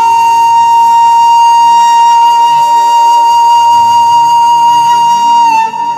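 Background music: one long held melody note over a soft low accompaniment, weakening near the end.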